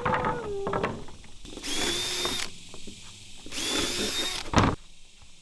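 Cordless power drill drilling holes, run in two bursts of about a second each with a steady high motor whine. A sharp knock follows near the end.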